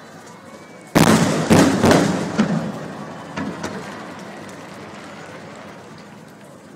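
Aerial fireworks shells bursting: a sudden cluster of loud booms about a second in, a few smaller bangs after them, then a slowly fading rumble.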